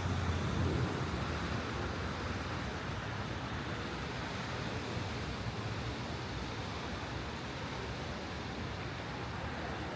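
Steady city road-traffic noise, with a vehicle's low rumble fading away in the first second, leaving an even wash of traffic sound.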